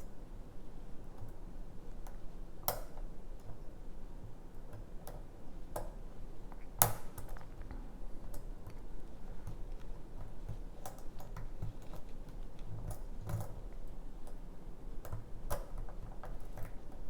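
Light, irregular metallic clicks and ticks of a lock pick working the pins inside a pin-tumbler challenge lock under tension, with a sharper click about 7 s in and another near 3 s.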